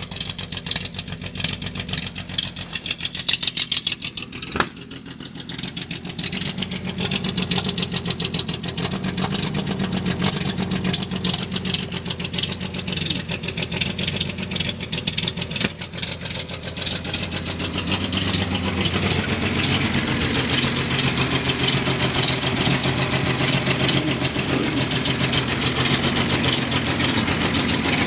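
Datsun 280Z's L28 inline-six engine idling roughly, its firing uneven. There is a sharp click about four and a half seconds in, and the engine grows louder and hissier about two-thirds of the way through.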